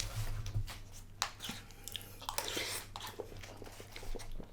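A person chewing a mouthful of buffalo chicken mac and cheese close to the microphone, with irregular wet mouth clicks and smacks.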